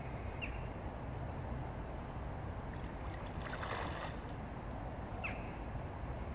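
Steady rush of shallow river water. A spawning trout splashes at the surface about three to four seconds in. A short high chirp comes twice, about five seconds apart.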